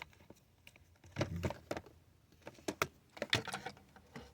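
Irregular plastic clicks and rattles from steering-column parts being tugged and wiggled as the old turn signal module is worked loose; it will not come out because something is holding it.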